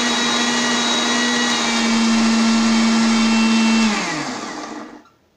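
Maharaja Whiteline Nano mixer grinder with a stainless-steel jar running at full speed, grinding cooked tomatoes, onion, cashews and almonds into a smooth paste: a loud, steady motor whine. About four seconds in it is switched off, and the whine falls in pitch as the motor spins down and fades within a second.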